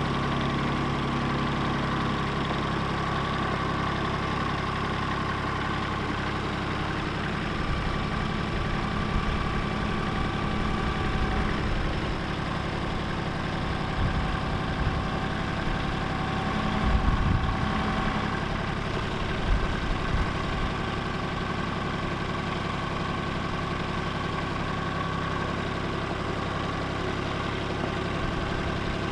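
Diesel tractor engine running steadily at idle. Irregular low thumps come and go through the middle stretch.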